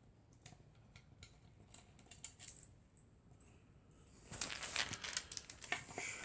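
Scattered small clicks and taps, then denser scraping and rustling from about four seconds in: hands and tools working on a vintage Fender Duo-Sonic electric guitar as it is taken apart.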